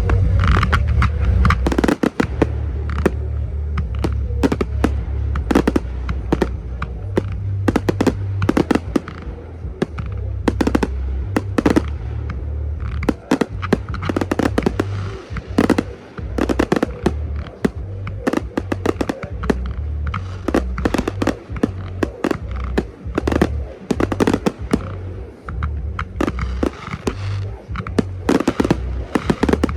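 Fireworks display: a rapid barrage of sharp shell bursts and reports, several a second, over a deep low rumble.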